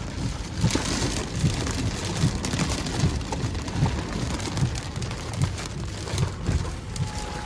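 Heavy wind-driven rain in a severe thunderstorm, a dense steady hiss, with wind gusts buffeting the microphone in repeated low thumps.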